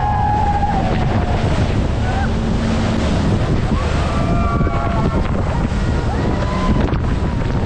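Heavy wind buffeting on the microphone over the rushing water and spray of a waterfall, as a speedboat drives into the churning water at its base. The noise is loud and steady.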